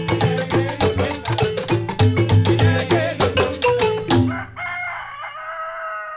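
Fast West African percussion music of rapidly struck pitched notes stops about four seconds in. A rooster then crows once, a long call.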